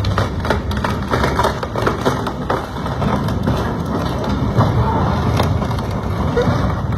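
A fishing boat's hull cracking and crunching as a barge crushes it, with many short cracks over a steady low rumble.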